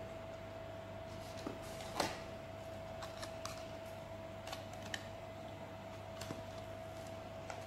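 Cardboard of a cockroach trap box and its folded trap being handled: scattered soft rustles, scrapes and taps, the loudest about two seconds in. A steady faint hum runs underneath.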